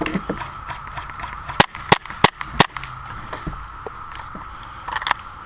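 Airsoft gun firing four single shots in quick succession, each a sharp crack about a third of a second apart, with a few lighter clicks around them.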